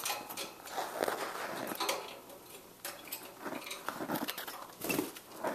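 A blue parrotlet splashing in its bath dish, with irregular patter and small clicks.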